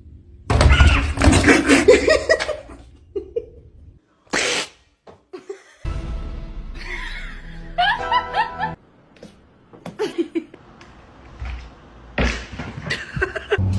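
Bursts of human laughter over background music, in short segments that start and stop abruptly.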